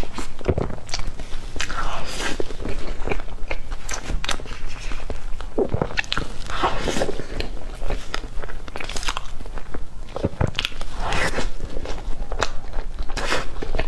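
Close-miked eating sounds of soft cream-layered fruit cake being bitten off a fork and chewed, with irregular wet mouth smacks and clicks.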